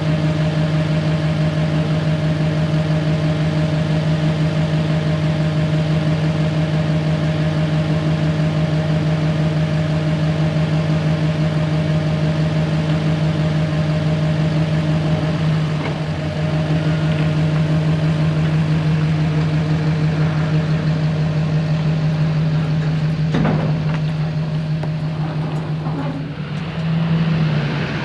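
Engine of a piece of landscaping machinery such as a skid steer running steadily at constant speed, dipping briefly about halfway through and rising briefly just before the end, with a single knock near the end.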